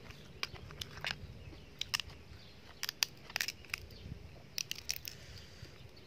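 Cooked crab claw shells cracking and snapping as they are broken apart by hand: a string of short, irregular cracks and clicks.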